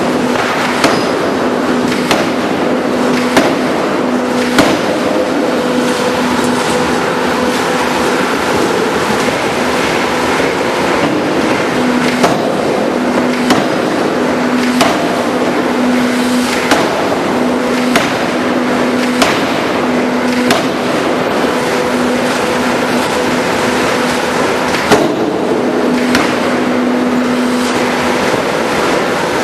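4-ton double-arm hydraulic open die forging hammer at work: sharp blows repeat about every second and a half over a continuous loud hum, with a steady drone that comes and goes.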